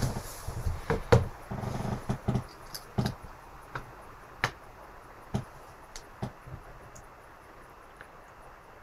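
Handling noise: a quick cluster of knocks and clicks over the first three seconds, then a few single clicks about a second apart that die away near the end.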